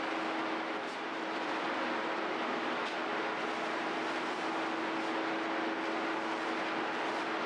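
Steady running machinery: an even rushing noise with a constant low hum, and a few faint clicks.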